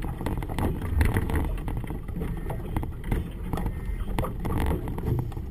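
Gusty wind buffeting the microphone and a flag flapping on its staff, over the low rumble of a small boat's outboard motor.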